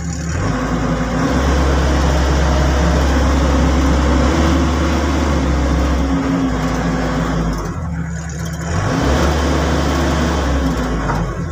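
Komatsu PC138US excavator's diesel engine, heard from inside the cab, revving up from idle and holding high revs. It drops back briefly about eight seconds in, rises again, then falls back near the end. The engine now answers the throttle after repair of its no-acceleration fault.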